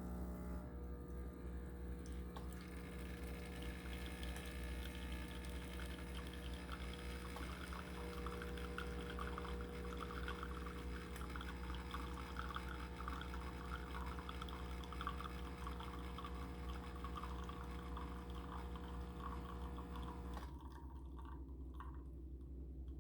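Wirsh Home Barista Plus 20-bar espresso machine pulling a double shot: its pump runs with a steady hum while espresso trickles into a glass. The pump and the trickle stop together near the end.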